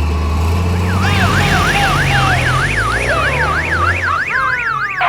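Police-car siren sound effect: a fast up-and-down yelp starting about a second in, about two and a half sweeps a second, over a steady low rumble.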